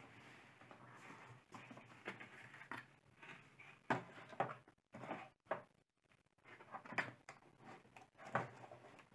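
Cardboard packaging being handled: the box's cardboard insert folded back and the plastic bag around the scale touched, giving faint rustles and a series of short sharp knocks, loudest about four seconds in and again about seven seconds in.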